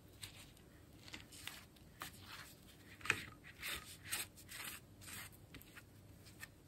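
Brush strokes rubbing and scraping across a fabric tag, a quick irregular series of short scratchy strokes, as glue or medium is brushed on.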